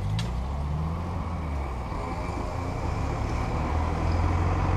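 Tractor engine running as it drives across a level crossing, its low hum growing louder toward the end over general road traffic. There is a single sharp click just after the start.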